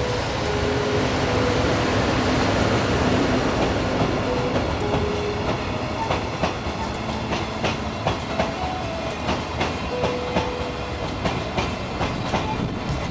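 Freight train passing close by: a loud, steady rush of wheels on rail, turning about halfway through into a rhythmic clickety-clack as the wagons' wheels cross the rail joints.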